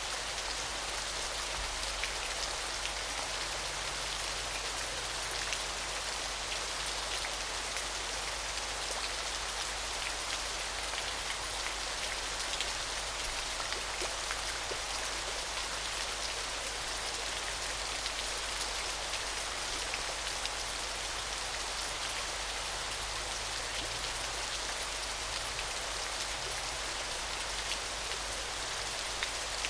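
Small waterfall: water falling and splashing steadily, an even hiss speckled with fine droplet splashes.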